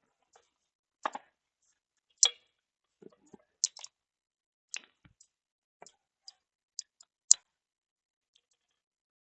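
Irregular metallic clicks and clinks of hand tools on the forklift transaxle's bolts as it is unbolted, about a dozen sharp ticks. The loudest come a little after two seconds in and about seven seconds in.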